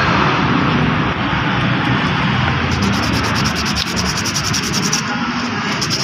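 Sandpaper rubbed back and forth over the copper contact tracks of an automatic transmission's inhibitor (neutral safety) switch, scouring off heavy grime so that the copper shows through again. It is a steady rasp, with fast, even strokes from about three seconds in.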